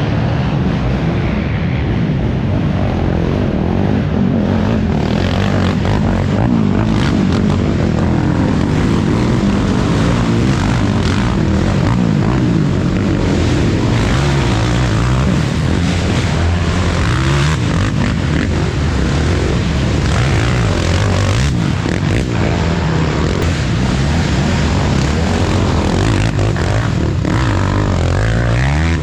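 Racing ATV engines running hard, revving up and down continuously as the quads accelerate and shift, with a rising rev near the end.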